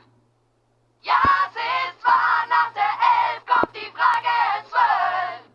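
Singing voices in short, chopped phrases, starting after about a second of silence.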